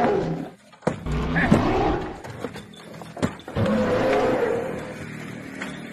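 Recorded dinosaur roars, three long bellowing calls of about a second each, one after another.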